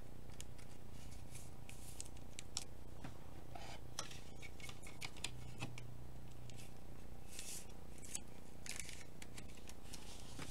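Faint plastic rustling and light clicks as a trading card is handled in a soft plastic sleeve and a rigid clear top loader, over a low steady hum.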